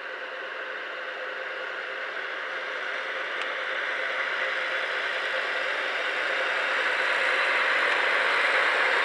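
JR Hokkaido FURICO tilting diesel limited express passing close by, its running noise of engines and wheels on rail growing steadily louder as the cars go past.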